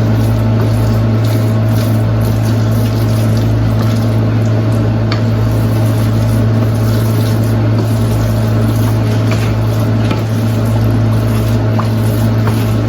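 A steady, loud low hum runs throughout, with a few faint clicks and scrapes from a spoon stirring refried beans in a pan.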